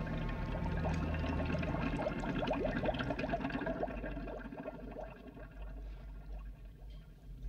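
Water trickling and bubbling in a quick run of short rising notes, over a low steady drone that stops about two seconds in; the sound thins out over the last few seconds.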